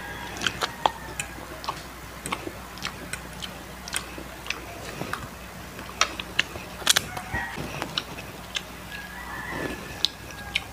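Close-miked chewing of super crispy fried chicken skin: irregular sharp crunches and crackles, several a second.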